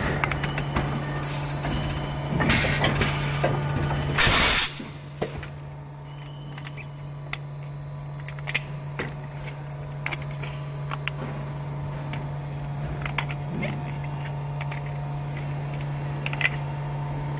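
Powerjet EB25H65S1 extrusion blow moulding machine running with a steady hum. In the first few seconds there are bursts of compressed-air hiss, the loudest a short sharp blast about four seconds in. After that come scattered clicks and knocks as the moulded ball is worked out of the mould.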